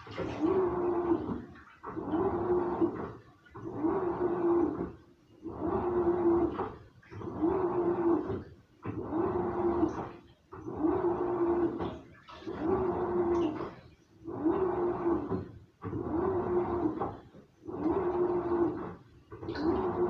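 Samsung washing machine on its wash cycle: the drum turns in short strokes, each carrying a steady motor whine and the sloshing of water and laundry. Each stroke breaks off briefly, and a new one starts roughly every 1.7 seconds.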